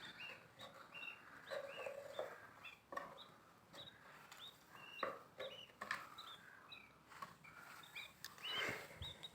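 Lovebirds chirping faintly, many short high calls a few to the second, with a few soft clicks and rustles.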